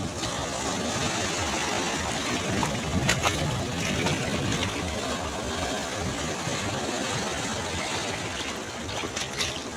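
Sea waves washing onto a beach: a steady rush of surf with a few short, sharper splashes.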